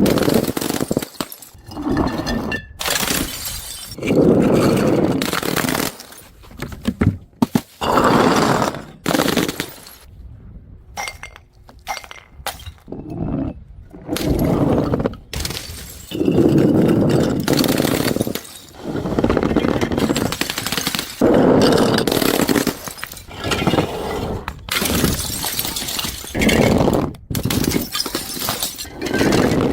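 Glass being smashed again and again, one loud shattering crash every couple of seconds, with a quieter stretch of small tinkling pieces partway through.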